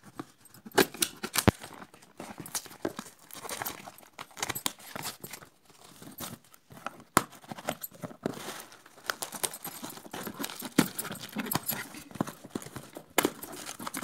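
Cardboard shipping box being cut and torn open by hand: a knife slitting the packing tape and paper label, then tape ripping and cardboard flaps scraping, in a long string of sharp rasps and clicks.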